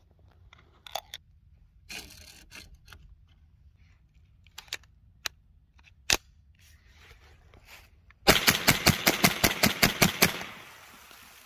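A few sharp metallic clicks as the Browning semi-automatic .22 rifle's action is handled. Then the rifle is fired in rapid succession, about a dozen shots in two seconds, with the sound trailing off after the last one.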